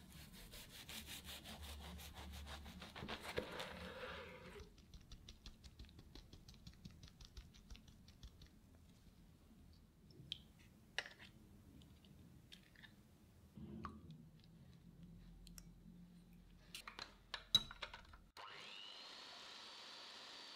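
A knife sawing back and forth through a soft sponge roll cake with quick rasping strokes, followed by light clicks and taps as eggshells are cracked. Near the end an electric hand mixer switches on, its whine rising as it spins up and then holding steady while it whips egg whites.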